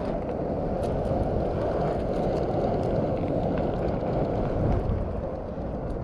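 Cruiser skateboard wheels rolling on pavement: a steady rumble with faint clicks over the surface.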